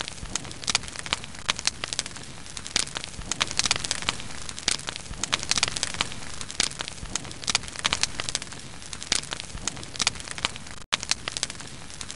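Campfire crackling: a steady hiss with dense, irregular sharp pops and snaps. The sound cuts out for an instant near the end and resumes.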